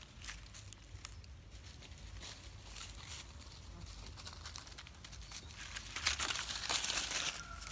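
Dry fallen leaves crackling and rustling as monkeys move over the leaf litter: scattered small crackles, then a louder burst of rustling about six seconds in as a monkey scampers across the leaves.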